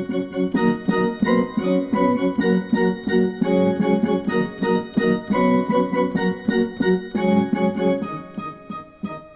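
Electronic keyboard played by hand: a pop tune in rhythmic chords, several notes at a time, getting quieter and sparser near the end.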